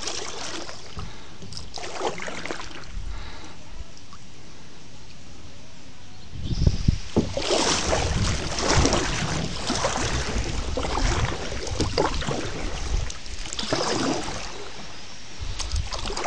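Water splashing and sloshing as a kayak is paddled along a shallow creek. It gets louder about six seconds in, with repeated splashes roughly one a second.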